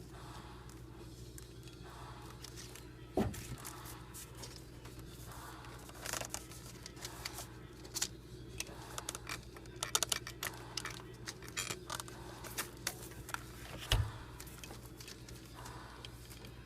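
Hands handling rubber-booted spark plug wires around a distributor cap in an engine bay: scattered small clicks, rustles and scrapes over a steady low hum, with two heavier knocks, one about three seconds in and one near the end.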